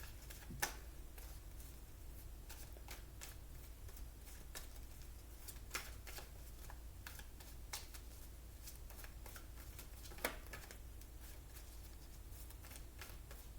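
Tarot cards being shuffled and handled: faint, scattered card flicks and taps, with a few sharper snaps, over a low steady hum.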